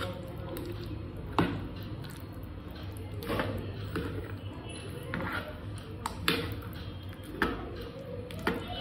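Metal spoon stirring chopped vegetables into thick yogurt in a bowl: soft wet squelching, with sharp taps of the spoon against the bowl coming irregularly, about once every second or two.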